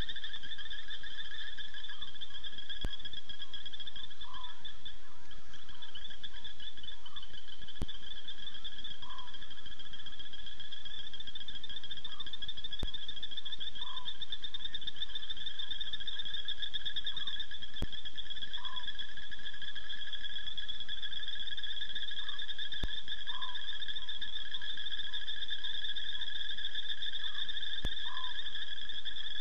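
Night chorus of insects and frogs: a steady, shrill, unbroken trilling, with short calls repeated every second or two beneath it.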